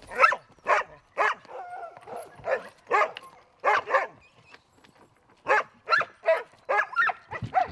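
Sled dogs barking: about a dozen short, sharp barks in quick succession, with a brief pause a little past the middle.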